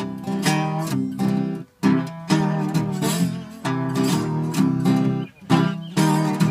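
Acoustic slide guitar played with a bottleneck, a repeating rhythmic blues riff of struck chords, with brief pauses at about a second and a half and again at about five seconds.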